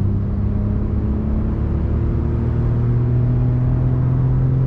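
Maruti Suzuki Baleno RS's 1.0-litre three-cylinder turbo petrol engine, heard from inside the cabin, pulling hard under full acceleration after a downshift, its note climbing steadily in pitch.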